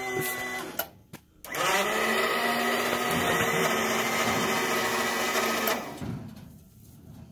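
Electric motor of a truck-mounted crane whining as it moves a suspended welder: a short run that stops just under a second in, then a longer run of about four seconds that rises in pitch as it spins up, holds steady and winds down.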